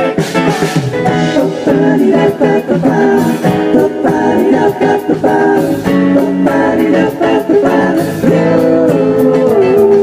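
Live band music through a PA: acoustic guitar, keyboard, bass and drums playing a slow pop song, with a sung melody over it.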